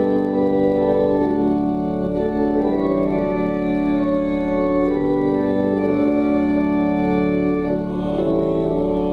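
Church organ playing a slow hymn in full, sustained chords that change about once a second.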